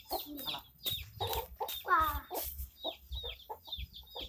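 Chickens clucking, with many short high chirps that fall in pitch and a louder falling call about two seconds in.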